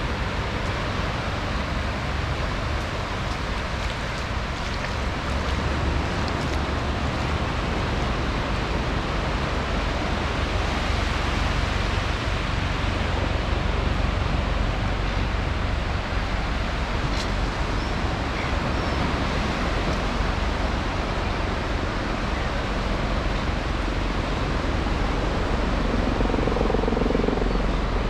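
Steady wash of ocean surf, with wind rumbling on the microphone. Near the end, the hum of an aircraft engine begins to come in.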